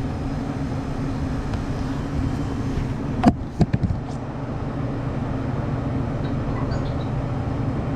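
Walk-in cooler condensing unit running with a steady low hum. About three and a half seconds in, a quick cluster of four or five sharp clicks or knocks.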